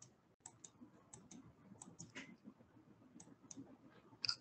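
Faint, irregular clicks of a computer mouse, several in quick pairs, the loudest near the end.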